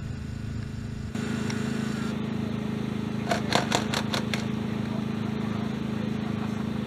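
An engine idling steadily. It is joined by a quick run of about half a dozen sharp pops around the middle.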